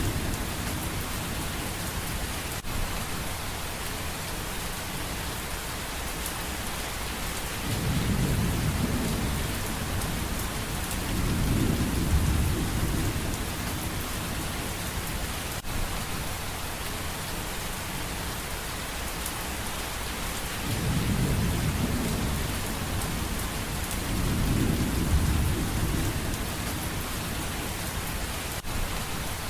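Steady heavy rain with rolling thunder: four low rumbles, each lasting a couple of seconds, swell up through the rain, about eight and twelve seconds in and again about twenty-one and twenty-five seconds in.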